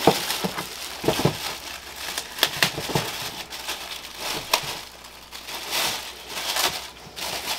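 Plastic packaging crinkling and rustling as parts are pulled out of a cardboard box, with several sharp clicks and knocks along the way.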